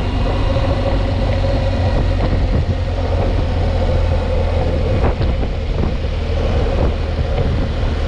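Motorcycle engine running steadily while riding through town, a continuous low drone mixed with wind noise.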